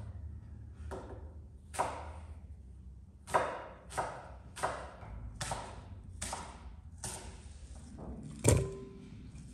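A kitchen knife cutting green apples on a wooden cutting board: about nine chops and knocks of the blade against the board, spaced roughly half a second to a second apart. Near the end comes a heavier thud with a brief ringing tone.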